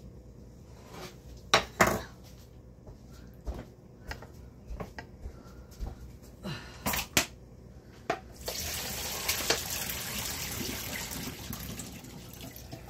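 Pot knocks and clatter, then, about eight seconds in, cooked noodles being drained: water pours out of the pot into the sink for about four seconds and stops.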